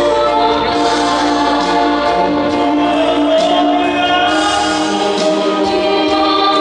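A man and a woman singing a duet through handheld microphones, holding long sustained notes.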